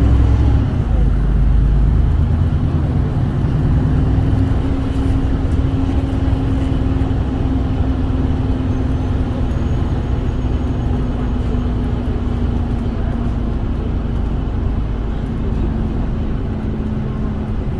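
City bus driving, heard from inside the cabin: the engine's steady low hum and rumble with road noise, heaviest in the first couple of seconds.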